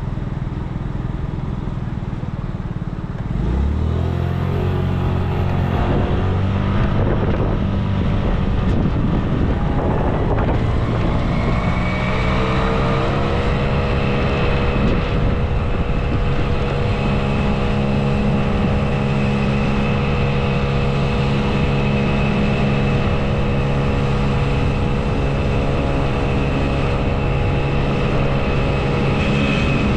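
An engine running close by. A steady low hum sets in about three and a half seconds in, and a higher steady whine joins it from about twelve seconds on.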